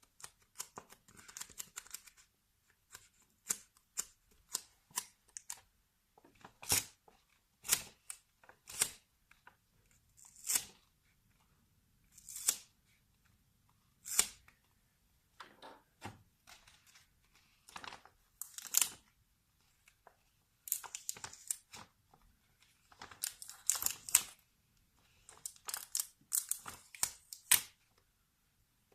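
Close-miked crisp tearing and crackling sounds, short sharp rips coming at an uneven pace, a few drawn out to about half a second, with brief pauses between clusters.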